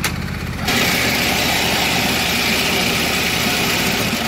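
Husqvarna YTH22V46 lawn tractor engine running steadily. After a click, it turns louder and harsher about a second in, with a steady rushing noise over the engine's low hum.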